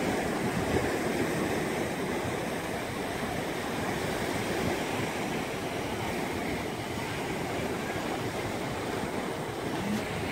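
Steady wash of surf breaking on the shore, with wind rumbling across the microphone.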